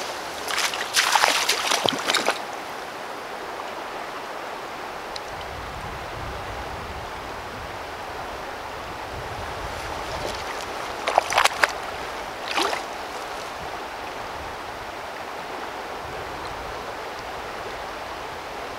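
Steady rush of a shallow creek flowing, with brief splashes of water close by about a second in and again around eleven to thirteen seconds in, as a fish is released in the shallows.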